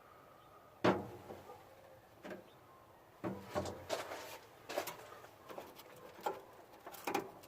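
Scattered light clicks and knocks, about eight over several seconds, of hands working the push-on wire terminals off an old starter solenoid.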